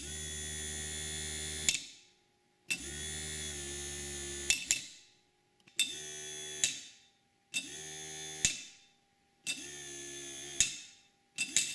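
Small DC hobby motor switched on and off five times by a homemade solenoid relay, humming steadily for one to two seconds at a time. Each run starts and ends with a sharp click as the nail-operated contacts close and open, and the hum winds down after each stop.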